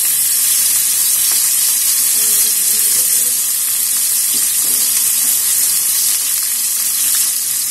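Dried fish frying in shallow oil in a pan over a low flame: a steady high sizzle, with a few faint clinks as a fork moves the pieces around.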